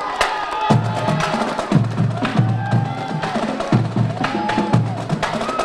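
A marching drumline playing a cadence: fast snare and tenor drum strokes, with heavy bass drum hits joining in groups about a second in.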